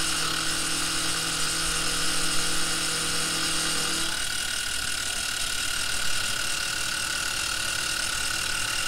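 Converted benchtop CNC mill side-milling aluminum stock with an end mill: the spindle motor whines steadily over the noise of the cut. A lower hum drops out about four seconds in.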